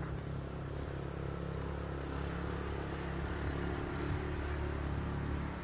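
A motor vehicle engine running steadily, growing a little louder in the second half.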